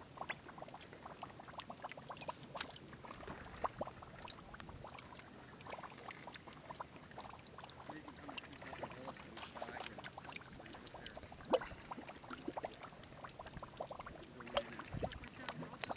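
Mud pots bubbling: carbon dioxide bubbles burst through thick mud in faint, irregular little plops and blips, with one louder pop about three quarters of the way through.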